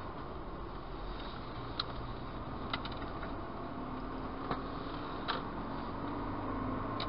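A car driving, heard from inside the cabin: a steady engine and road hum, with about five short sharp ticks scattered irregularly through it.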